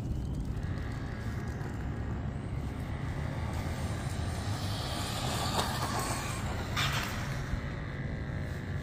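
Team Associated Reflex 14T RC car running flat out on asphalt: a thin steady electric whine with tyre hiss that swells in the middle, over a low steady rumble, and a short sharp noise about two seconds before the end.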